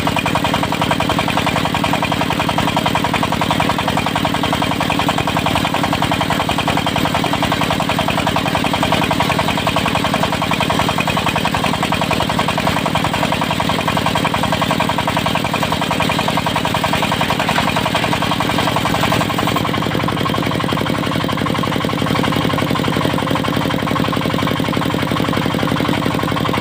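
Diesel engine of a portable circular-saw sawmill running steadily. About twenty seconds in, the higher, hissing part of the sound drops away a little.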